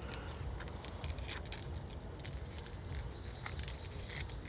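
Light, irregular scratching and clicking of handling noise as a threaded repair fitting is worked onto the cut end of a one-wire pressure washer hose.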